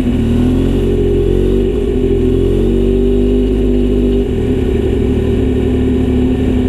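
Kawasaki Z900RS inline-four motorcycle engine running through a short Misty Kintaro aftermarket exhaust with a 70 mm silencer. Its note wavers gently up and down, then changes to a steadier note about four seconds in.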